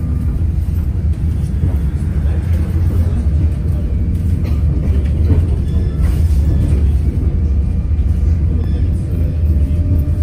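Interior of a moving ČKD KT8D5R.N2P articulated tram: a steady, loud low rumble of the wheels on the rails and the running gear.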